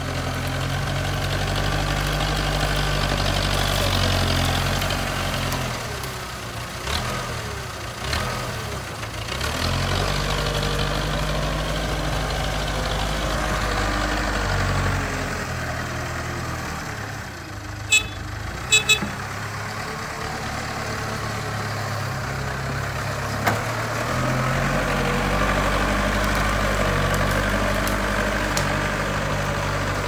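JCB backhoe loader's diesel engine running as the machine drives and works its front bucket, the engine note dropping back twice and picking up again. A few sharp clicks about two-thirds of the way through.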